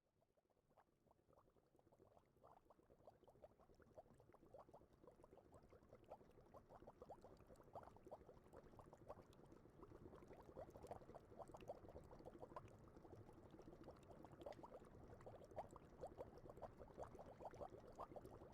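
Ginger green tea heating in a pot as it comes toward the boil: faint, scattered ticks and pops of small bubbles that grow steadily more frequent and louder.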